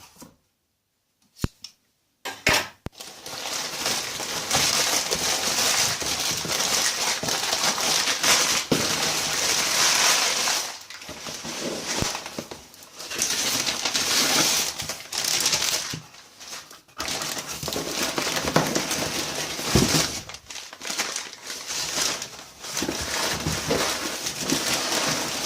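Crinkling and rustling of packing material as a parcel is unpacked by hand, in long stretches with short pauses, after a couple of seconds of silence at the start.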